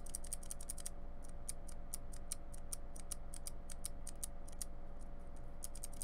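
A Tai-Hao ABS doubleshot keycap on a single blue mechanical keyboard switch, held between the fingers and pressed over and over. It gives rapid, sharp clicks, several a second, with short pauses about a second in and again near five seconds.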